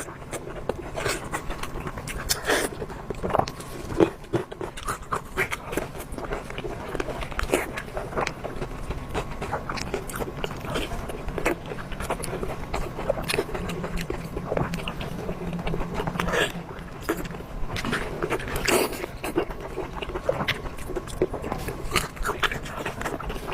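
Beef sausage being bitten and chewed, a dense irregular run of short clicks and smacks.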